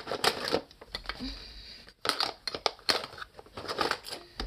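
Makeup items being handled and put into a box, with irregular clusters of clicks, knocks and rustles.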